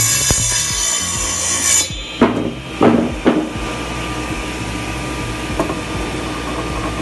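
Table saw running with a high, steady whine that cuts off abruptly about two seconds in. Then come three sharp wooden knocks as the lumber is lifted and set down on the saw's table.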